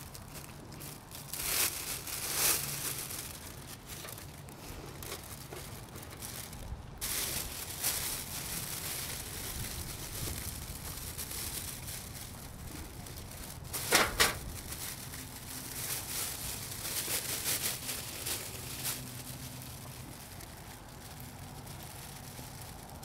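Clear plastic turkey roasting bag crinkling and rustling as it is pulled down over a hanging raw turkey and smoothed around it, in scattered bursts with one brief louder crackle about fourteen seconds in.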